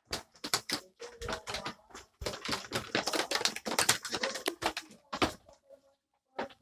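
Goats' hooves clattering on the pen floor: a quick, uneven run of knocks and clicks, densest in the middle, that dies away about a second before the end.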